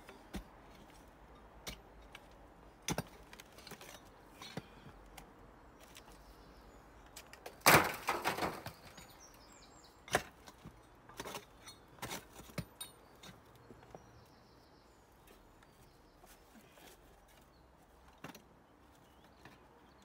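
Spade digging into soil and rubble: scattered sharp knocks and scrapes, with one louder scrape lasting under a second about eight seconds in.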